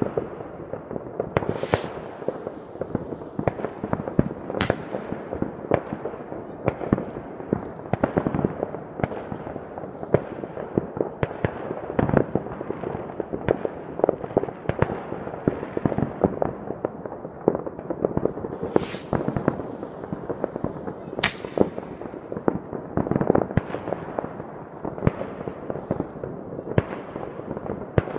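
New Year's fireworks and firecrackers going off in many places at once: a dense, continuous crackle of overlapping bangs, with a few sharper cracks standing out.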